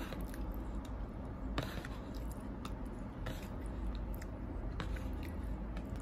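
Close-up eating sounds of noodle soup being chewed, with irregular small clicks of chopsticks against the bowl over a low steady hum.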